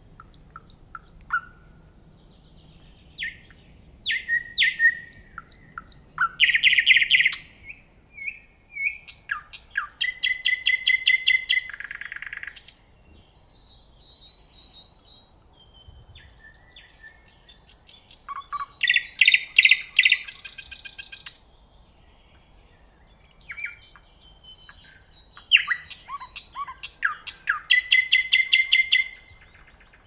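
Nightingale singing: about five phrases a few seconds long, each made of fast runs of repeated notes, rattling trills and clear whistles, with short pauses between them.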